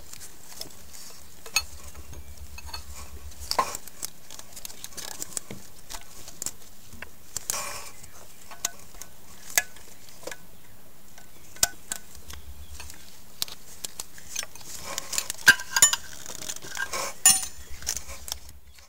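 Hand tools clinking and scraping on metal as a 6 mm Allen wrench loosens the timing belt tensioner: scattered small metallic clicks, louder and closer together near the end.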